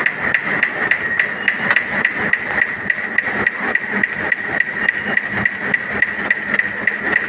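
Automatic paper-cutting machine running steadily, with a sharp click about three times a second over a constant high-pitched hum.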